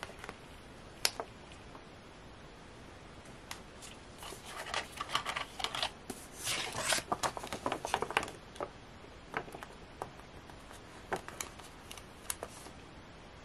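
Paper pages of a ring planner being turned and a clear plastic pocket being handled, with rustling and crinkling and scattered small clicks. The handling is busiest from about four to eight and a half seconds in.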